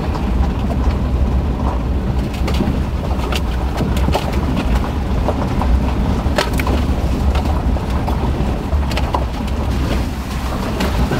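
Inside the cab of a Nissan Navara pickup with its 2.3-litre diesel engine, rolling slowly along a rough, stony track: a steady low drone of engine and tyres, with scattered sharp clicks and knocks.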